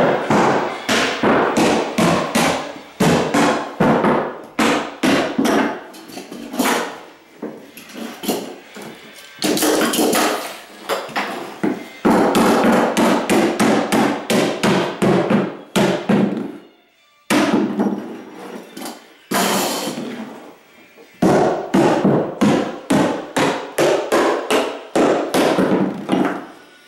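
Hammer driving the nails of carpet tack strip into the subfloor: runs of quick, sharp blows, several a second, with a brief pause partway through.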